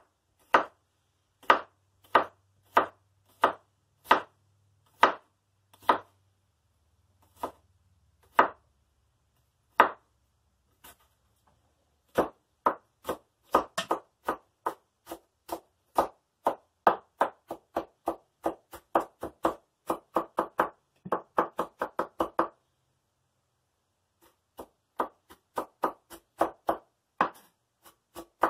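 Kitchen knife dicing a jalapeño on a wooden cutting board, with sharp knocks of the blade on the board. The strikes come slow and scattered at first, with a lull, then turn to quick, even chopping of about three or four strikes a second from a little before halfway. After a short pause near the end, the chopping picks up again.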